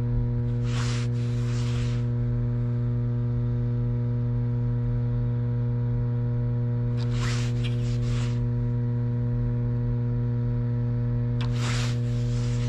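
A steady low hum with even overtones from the dam's plant machinery. Three short rasping sounds of about a second each, near the start, around the middle and near the end, come from the spinning rod and reel being handled.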